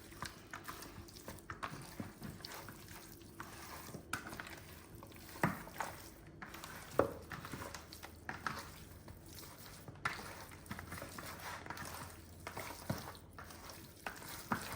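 Raw chicken being mixed by hand with spice powders and ginger-garlic paste in a bowl: faint, irregular wet squishing with small scattered clicks and knocks.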